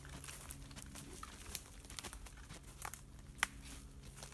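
Footsteps through woodland undergrowth: irregular crackles and snaps of dry twigs and leaf litter underfoot, with one sharper snap about three and a half seconds in.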